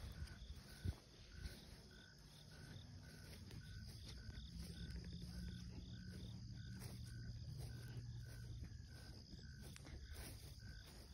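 Faint insect chirping, short chirps repeating evenly about twice a second, with a faint low hum rising in the middle and fading later.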